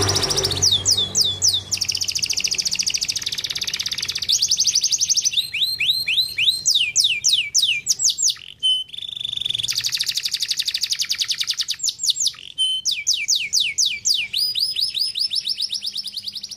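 Domestic canary singing a long, unbroken song of rapid trills: fast runs of down-sweeping notes and buzzy rolls, switching to a new trill every second or two, with a couple of short whistled notes in the middle.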